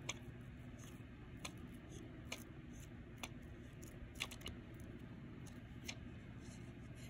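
Faint, scattered light clicks and ticks from handling a pack of sticky notes, irregular and a second or so apart, over low room tone.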